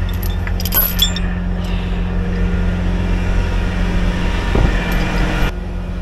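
A heavy wrecker's diesel engine running steadily at idle, with a few light metallic clinks near the start and a hiss that builds and cuts off suddenly about five and a half seconds in.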